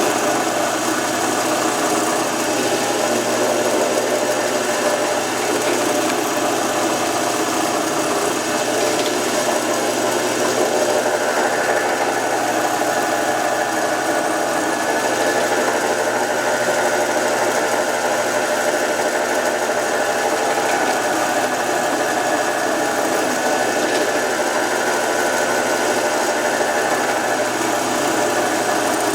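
A woodworking power tool running steadily, a continuous motor whine. A somewhat higher tone joins in from about a third of the way through.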